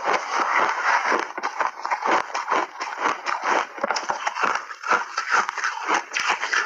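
Refrozen shaved ice with mixed berries being chewed close up: a steady run of loud, crisp crunches, several a second.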